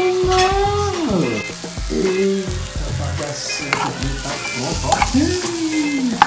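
Shrimp frying in olive oil with garlic in a pan, sizzling steadily, with music playing over it.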